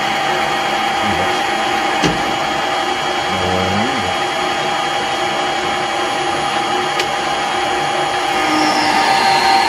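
Colchester Bantam lathe running with a carbide tool taking a power-fed cut along the work, a steady whine with a faint tick about two seconds in; a smooth cut that sounds better than the earlier chatter-prone passes.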